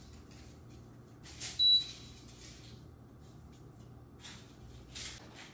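Instant Vortex Plus air fryer control panel giving one short high beep about a second and a half in as its settings are pressed, with a few soft clicks as the temperature dial is turned. A faint low hum sits underneath.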